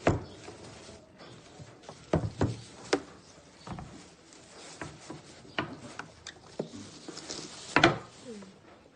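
Scattered knocks and clicks, about half a dozen at uneven intervals, the loudest near the end: hard objects being handled.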